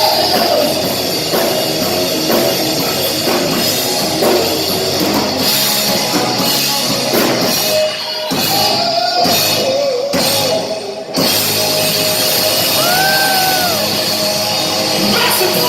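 Live rock band playing loud, with electric guitar and drums. The sound briefly thins out twice around the middle, and near the end a guitar note bends up and back down.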